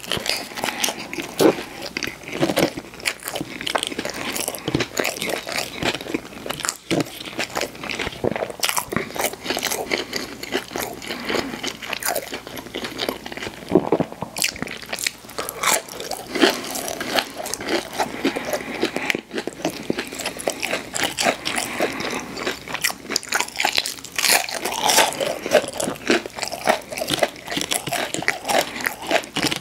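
A person biting into and chewing crunchy fried food: dense, irregular crunches with chewing between the bites.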